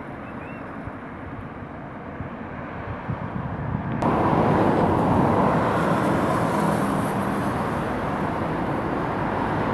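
Road traffic on a wet main road: cars and a van passing, a steady wash of engine and tyre noise. It becomes abruptly louder about four seconds in and stays so.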